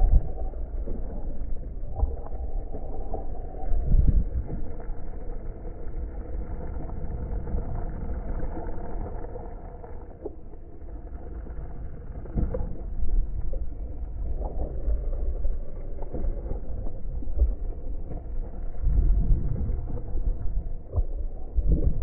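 Off-road inline skates on air-filled tyres rolling over a dirt trail, a steady low rumble that swells and eases, with wind buffeting the microphone.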